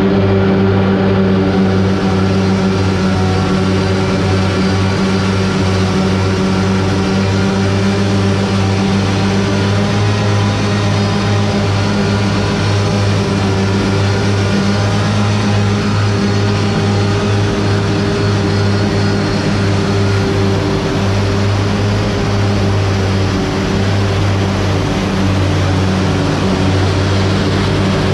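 Steady hum of running machinery: a loud, constant-pitched low drone with even overtones and no breaks.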